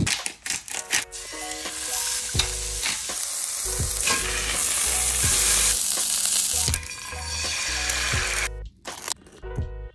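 A beef patty, then a cracked egg, sizzling loudly in a hot cast-iron skillet. The sizzle dips briefly a little before seven seconds and cuts off suddenly near the end. Background music with a steady bass beat plays underneath.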